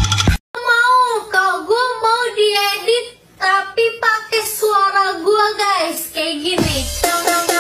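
Music: a song with a high singing voice carrying a bending melody. The bass and beat drop out at the start and come back in near the end.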